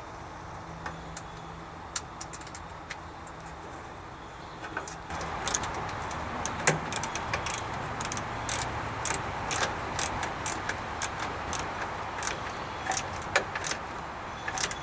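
Light metallic clicks and clinks from tools and battery hold-down hardware being handled during a garden tractor battery install. They come scattered at first and grow busier from about five seconds in, over a steady background hiss.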